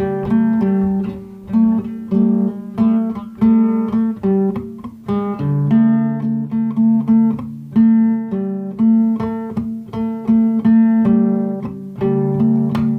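Acoustic guitar played with the fingers, a steady run of plucked notes ringing over sustained bass notes, with the bass moving lower to a new chord about halfway through.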